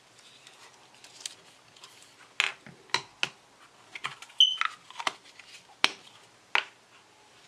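Handling sounds: a string of about eight sharp clicks and taps as a Pentax ME film camera is set down on a wooden table and a plastic 35mm film canister is handled, with a short high squeak about halfway through.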